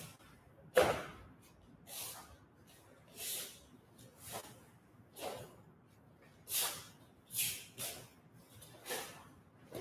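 A taekwondo practitioner performing a poomsae form: a short sharp swish with each kick, strike and block, as the dobok snaps and breath is pushed out. There are about nine swishes a second or so apart, the loudest about a second in.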